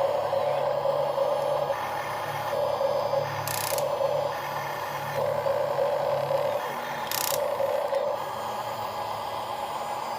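Small electric motors of a radio-controlled toy excavator whirring in short starts and stops, with a lower steady hum that fades out about two-thirds of the way through and two brief hissy bursts.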